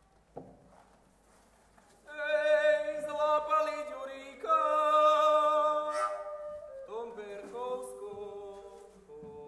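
Unaccompanied singing of a Slovak folk song: after about two seconds of near quiet, a voice comes in loud with long held notes and vibrato, then carries on more softly near the end.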